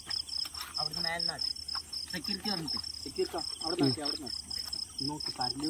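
A cricket chirping steadily in high, evenly spaced pulses, several a second, with people's voices talking in low tones over it.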